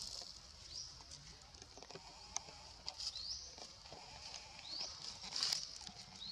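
Baby monkey giving short, high-pitched rising squeaks, three of them in the second half, among a few sharp clicks and a brief rustle.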